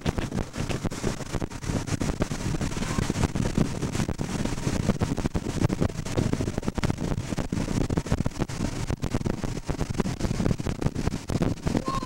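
Wind buffeting the camcorder microphone: an uneven rushing noise that keeps surging and dropping, with constant small crackles and pops.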